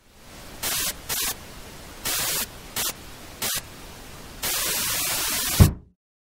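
Old television static: a steady hiss that surges louder in about six bursts, the last one long. It ends in a single low thump, the fist banging on the TV set, and the static then cuts off at once.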